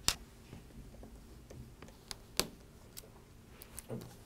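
Scattered sharp clicks and light metallic taps of a small Phillips screwdriver working screws out of a laptop's metal battery bay, the loudest right at the start and another in the middle, with a duller knock near the end.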